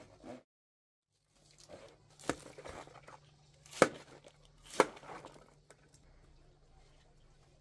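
Fresh cauliflower being cut apart with a knife and florets snapped off by hand: crunching and crackling with three sharp cracks, the loudest about four and five seconds in.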